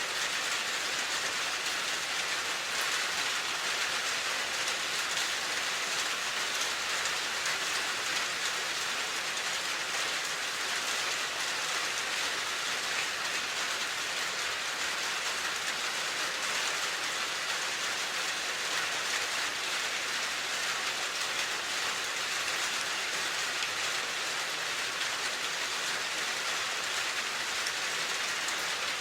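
Steady rain falling on a surface: an even hiss with fine patter, without a break.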